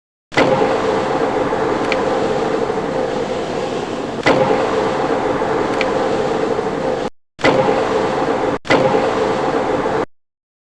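Metal lathe running steadily with a constant hum, with a few faint clicks; the sound drops out abruptly twice.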